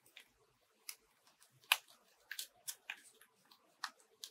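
Foam fruit-protector netting crinkling as it is rolled and pinched between the fingers: faint, irregular crackly clicks, about two a second.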